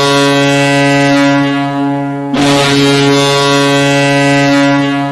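Metallurg Magnitogorsk's ice hockey goal horn sounding long steady blasts, breaking off about two seconds in and starting again at once.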